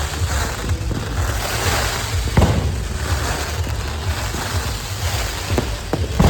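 Fireworks going off: a continuous low rumble with a sharp bang about two and a half seconds in and several more near the end.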